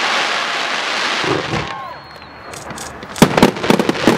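Fireworks crackling densely for about two seconds, then dying down with a short whistle, followed by a quick run of sharp bangs near the end.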